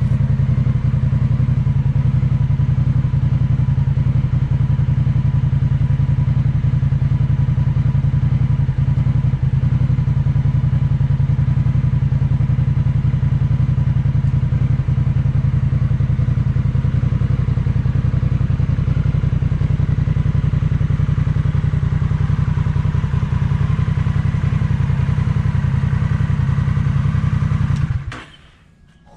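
Honda Rebel 1100's parallel-twin engine idling steadily through a Noy Custom slash-cut stainless-steel slip-on exhaust, with a deep, even exhaust note; it stops suddenly near the end.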